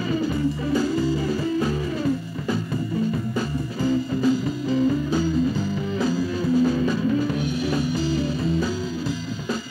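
Gospel-style music playing: a guitar melody over bass guitar and drums keeping a steady beat.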